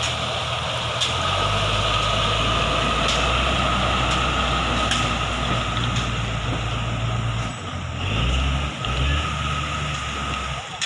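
Diesel engine of a medium tipper truck labouring as it crawls through deep mud, a steady low drone that shifts in pitch about eight seconds in and eases near the end as the truck moves off.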